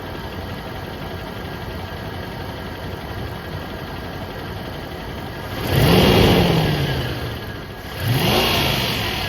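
Lexus GX470's 4.7-litre V8 idling, then revved twice, about six and eight seconds in, each time rising in pitch and falling back. The engine has a ticking noise that the owner is chasing after it was hydrolocked by driving into water.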